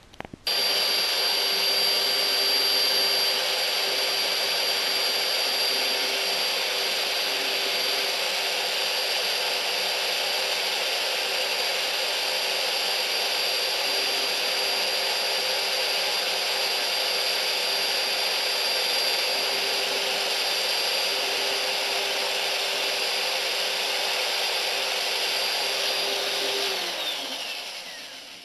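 Corded electric drill running at steady speed, spinning the pink corundum grinding wheel of a drill bit sharpener while a drill bit is sharpened in it. The motor starts suddenly about half a second in, and near the end it is released and winds down, its whine falling in pitch.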